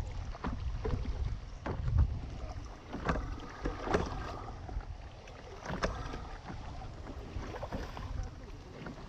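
Water splashing and lapping around a small paddled craft on choppy sea, in short irregular splashes, with wind rumbling on the microphone.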